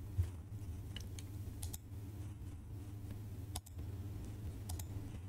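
A few separate computer mouse clicks, spaced irregularly, over a steady low electrical hum.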